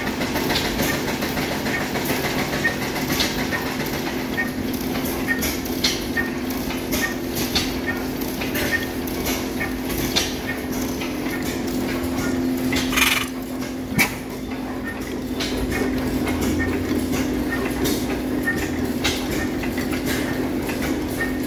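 Antique stationary gas engines running: a regular ticking and rhythmic clatter of valve gear over a steady hum. The sound changes about two thirds of the way through as a different engine takes over.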